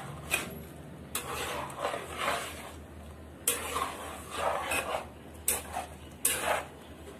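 A spoon stirring a pot of boiling dhal curry, scraping against the metal pot in about five separate strokes.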